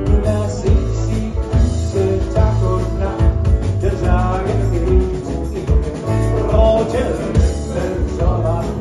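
A live band playing an upbeat rock-and-roll number with a steady beat.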